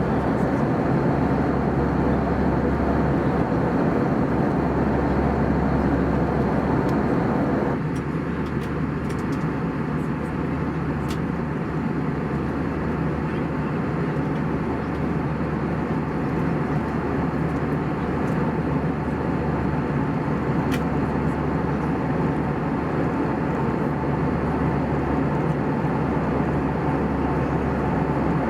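Steady rushing noise with a low hum inside an Airbus A320's cabin in flight, from the engines and the air streaming past the fuselage. The tone shifts slightly about eight seconds in, and a few faint clicks come through.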